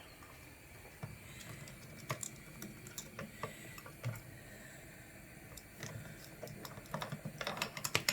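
Irregular light clicks and taps of small hard objects being moved about and knocked on a kitchen counter, growing busier near the end.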